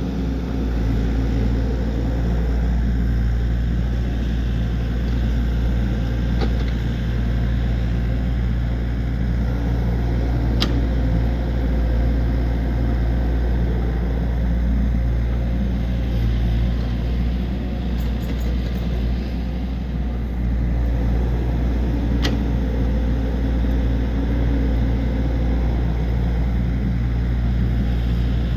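Excavator diesel engine running steadily under work, with three short sharp clicks or knocks.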